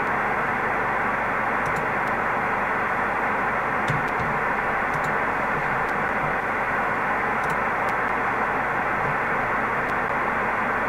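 Shortwave (HF) transceiver receiving band noise: a steady hiss of static cut off sharply above about 3 kHz by the receiver's passband, with a few faint ticks. No data tones are heard; the Pactor link has disconnected.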